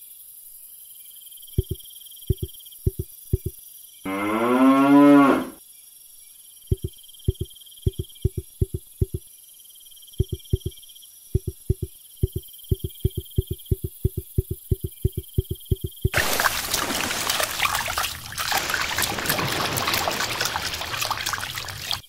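One long cow moo about four seconds in, the loudest sound. Around it come runs of short, low taps, several a second, and over the last six seconds a steady rushing noise.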